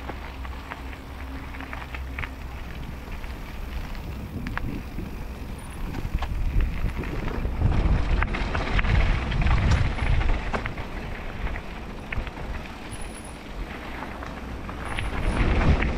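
Mountain bike rolling down a dirt trail: wind rushes over the microphone, tyres roll on dirt and gravel, and the bike rattles with many sharp clicks. It gets louder about six seconds in and again near the end.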